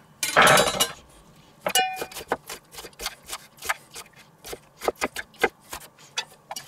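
Kitchen knife dicing an onion on a wooden cutting board. A longer noisy cut comes near the start, then a run of quick, uneven knocks of the blade on the board, about three or four a second.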